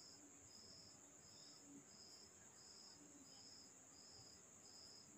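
Near silence with a faint insect chirping in a regular rhythm, about three chirps every two seconds, over a steady high whine.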